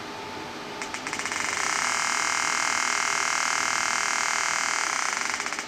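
Electromagnetic muscle-stimulation (EMS sculpting) applicators pulsing through a muscle-contraction phase: about a second in, rapid clicks quicken into a steady, high, finely pulsing buzz. The buzz lasts about four seconds and cuts off suddenly, over the steady hiss of the machine's air-cooling fan.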